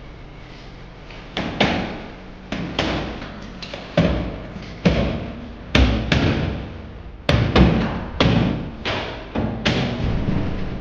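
Irregular knocks and thuds, about a dozen over several seconds, from the aluminium frame of a glass partition being worked into place overhead by hand.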